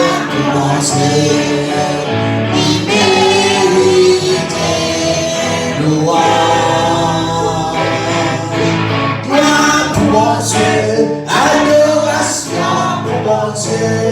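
Gospel singing by several voices over instrumental accompaniment, continuous and loud.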